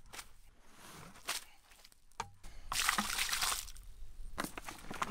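Chicken blood and slaughter scraps (feathers, guts) pouring out of plastic buckets and landing on a compost pile, loudest for about a second in the middle. The blood and feathers are being added as a nitrogen layer in a hot compost pile.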